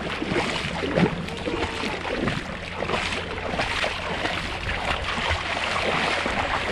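Shallow sea water sloshing and splashing close to the microphone: a steady noisy wash broken by many small splashes.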